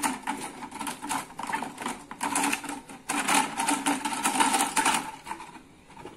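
Clear plastic bottle crackling and crinkling as it is gripped and turned in the hands: a rapid, irregular run of small clicks that dies down near the end.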